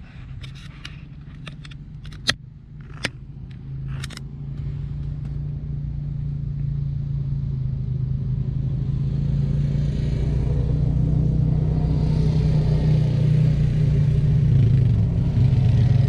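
ATV engines approaching along a dirt road, a steady engine drone growing louder over the whole stretch. A few sharp clicks sound in the first few seconds.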